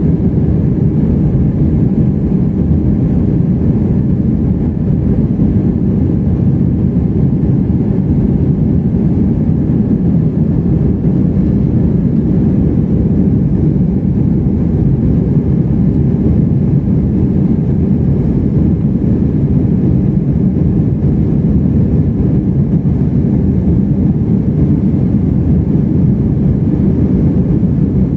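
Steady low rumble of an Airbus A320's engines and airflow, heard inside the passenger cabin during the climb after takeoff.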